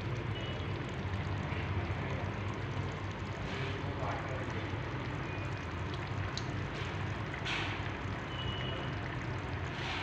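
Pot of meat and tomato stew simmering on the stove, bubbling softly with a few faint pops, over a steady low hum.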